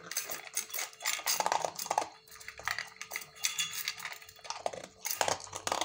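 A dog eating dry kibble from a stainless-steel bowl: irregular crunching, with pellets and teeth clinking against the metal bowl.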